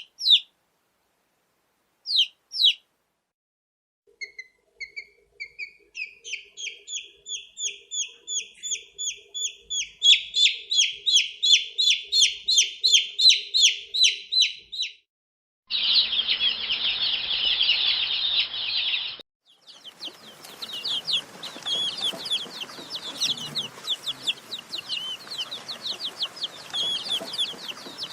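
Baby chicks peeping. A few single high peeps come first. Then one chick peeps in a steady run of about three a second. From about halfway, many chicks chirp together in a dense, overlapping chorus, in two separately spliced recordings.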